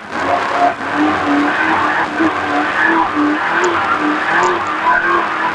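Racer Engineering race engine in an off-road race truck running hard at speed, heard from inside the cab. Its pitch rises and falls repeatedly, with a brief dip in level near the start.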